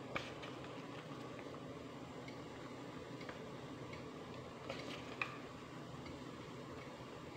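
Light clicks and leaf rustles as banana-leaf-wrapped rice parcels are set into a stainless steel steamer, over a low steady hum. The sharpest clicks come just after the start and about five seconds in.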